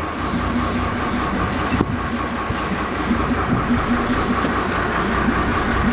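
Fishing boat's engine idling steadily, a low rumble with a steady hum over it.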